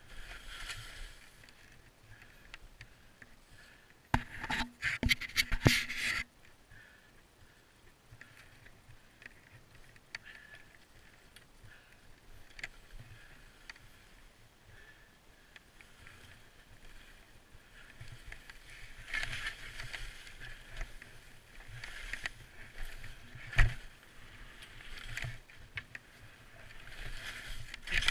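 Skis swishing through deep powder snow, the hiss swelling and fading repeatedly, with a loud cluster of clattering knocks about four to six seconds in and one sharp knock later on.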